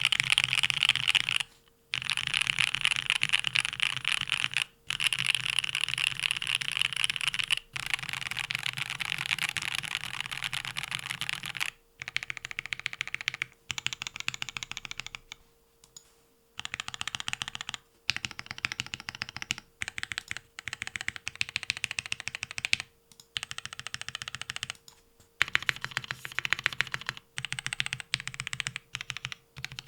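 Leaf65 custom mechanical keyboard with lubed Marshmallow switches and Extended 2048 keycaps being typed on fast, in rapid runs of keystrokes a few seconds long broken by short pauses.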